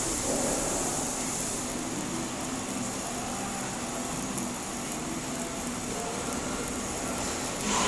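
Stick (SMAW) welding with an E7018 electrode: a steady hiss with fine crackle from the arc, plus a low hum.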